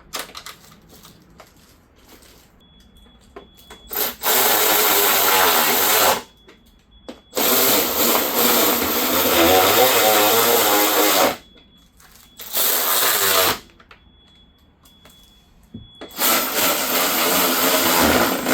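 Cordless power drill driving screws back in: four runs of the motor, the longest about four seconds, with quiet gaps of handling between.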